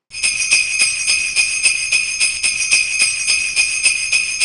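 Jingle bells shaken in a steady rhythm, about three shakes a second. They start suddenly and ring bright and high.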